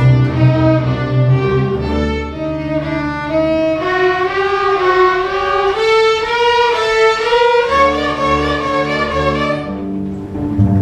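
Student string orchestra of violins, cellos and basses playing a melody in held, bowed notes. The low bass line drops out for a few seconds in the middle and comes back, and the high violin notes fall away near the end.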